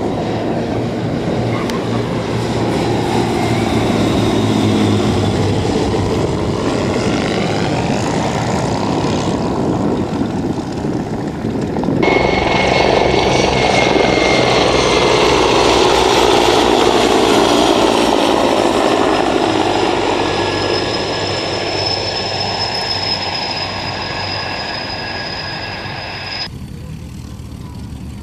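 Twin piston engines and propellers of an L-200A Morava light aircraft flying past, their pitch sliding as it passes. About twelve seconds in, it cuts suddenly to a louder Mi-24 attack helicopter passing with its rotor and a steady high turbine whine. Near the end, it cuts to a quieter propeller engine running on a parked Jungmann biplane.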